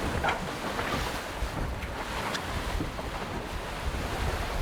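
Wind buffeting the microphone and water rushing past the hull of a racing sailboat under way, a steady noise with a few faint splashes.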